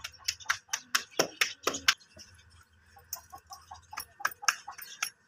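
Hands patting and slapping a ball of paratha dough between the palms to shape it: a quick series of slaps, about five a second, in two runs with a pause about two seconds in.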